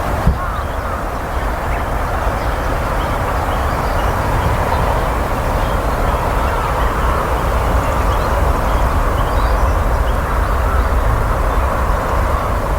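Steady low rumble and hiss of distant traffic, with faint, scattered short high chirps of a Japanese tit.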